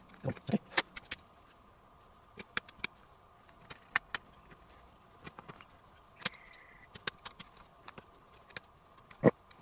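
Scattered light clicks and taps of small front-panel parts of a cassette deck being handled and fitted during reassembly, with one sharper click near the end, over a faint steady high tone.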